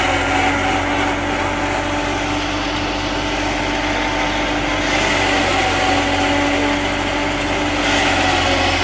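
Maize silage machine running steadily: a continuous machine drone with constant humming tones over a dense hiss.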